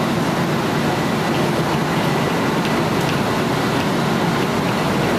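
Train passing close by: a steady rumble of wheels on rail, with faint scattered clicks.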